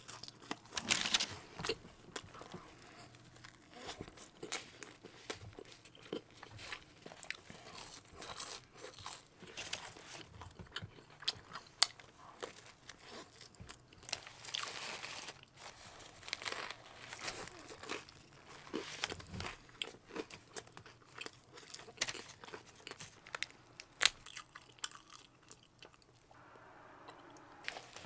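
Close-miked eating of In-N-Out food: irregular crunchy bites and chewing, with a couple of sharper clicks.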